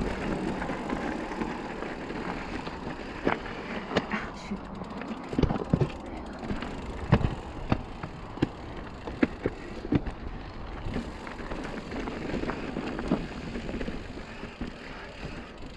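Mountain bike rolling down dusty, rocky singletrack: a steady rush of tyre and riding noise with frequent sharp knocks and rattles as the wheels hit rocks and the bike jolts.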